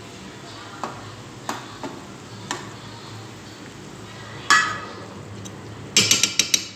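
A spatula knocking and scraping against a wok of fish simmering in tomato sauce, over a steady hiss of simmering. It gives a few light clicks, one louder ringing clank about four and a half seconds in, and a quick run of about seven clacks near the end.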